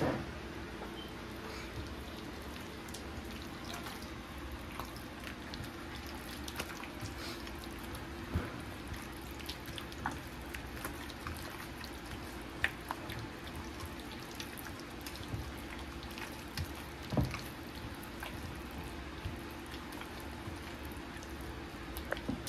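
Small wet clicks and drips scattered over a steady low hum, the sounds of food being cooked or handled in a kitchen, with a few louder knocks.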